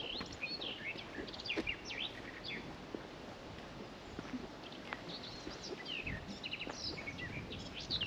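Songbirds singing in short, quick chirping phrases, in one spell at the start and another from about five and a half seconds in, over soft footsteps on a dirt path.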